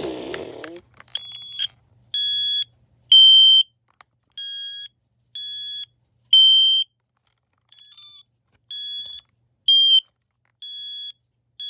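Firex F80C smoke alarm sounding on test: a high-pitched electronic horn beeping about once a second, each beep about half a second long, some beeps much louder than others.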